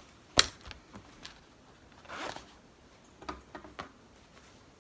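A denim zipper pouch being handled: a sharp click about half a second in, then a few faint clicks and a short fabric rustle.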